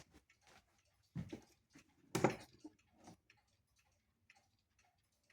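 Light ticks and knocks from the wall clock's wooden case being handled and opened, coming roughly once a second, with the loudest knock about two seconds in.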